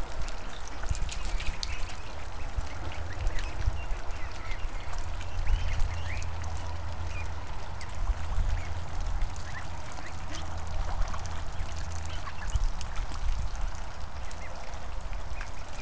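A flock of Pekin, Rouen and Muscovy ducklings calling, many short overlapping calls, over a steady low rumble.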